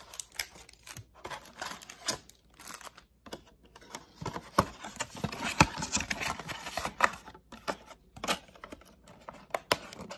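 Cardboard trading-card blaster boxes and plastic-wrapped card packs being handled and set down, giving irregular taps, clicks and light knocks.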